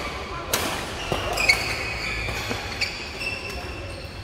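Badminton doubles rally: rackets strike the shuttlecock in several sharp cracks, the loudest about a second and a half in, with shoes squeaking on the synthetic court mat.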